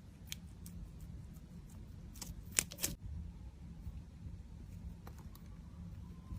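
Slime being worked by hand, giving scattered small sticky clicks and pops, with a louder cluster of them about two and a half seconds in.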